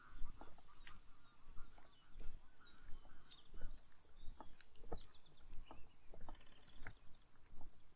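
Footsteps crunching on a path at an irregular walking pace, with small birds chirping faintly.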